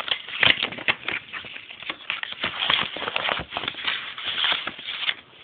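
A manila paper envelope rustling and crinkling as it is handled, in a steady run of irregular crackles and taps.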